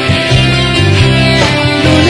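Live band music with no vocals: guitar strumming over a steady bass line.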